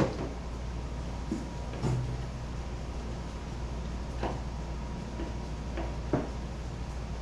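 A few light knocks and clicks from parts and hand tools being handled while fitting kayak foot braces, spaced about two seconds apart over a steady low hum.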